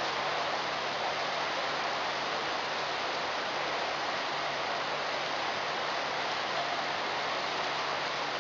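Steady rushing fan noise with a faint low hum underneath, unchanging throughout.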